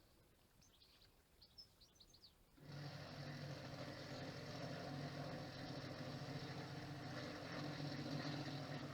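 A few faint, high bird-like chirps, then a steady mechanical hum that starts suddenly about a third of the way in and keeps going at an even level.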